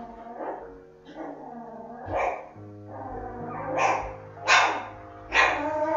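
A dog barking four times, the loudest barks in the second half, over background music.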